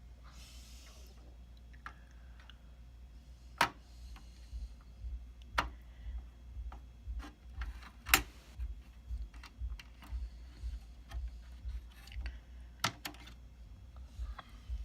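Sharp clicks and small taps of hardware being handled as a new Xeon CPU is fitted into a server's socket. There are four loud clicks, the loudest about eight seconds in, and many lighter ticks in between, with a short rustle at the start and a steady low hum underneath.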